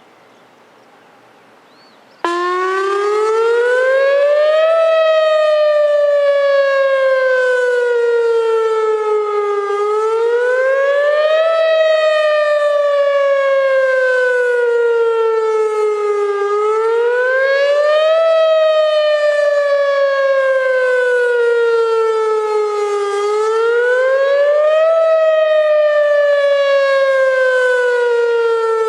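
Whelen WPS 2902 electronic outdoor warning siren sounding its wail tone on a routine test, loud. It starts abruptly about two seconds in, then cycles over and over: the pitch climbs quickly, then slides slowly back down, about once every seven seconds.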